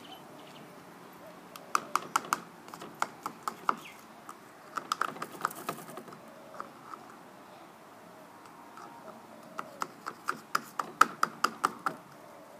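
Rapid light taps and clicks of a spoon knocked against a funnel to shake dish soap off, in three bursts of several taps a second.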